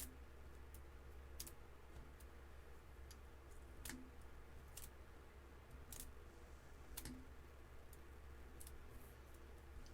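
Faint, scattered clicks and ticks from fingernails picking the small paper backings off foam adhesive dimensionals, over a steady low hum.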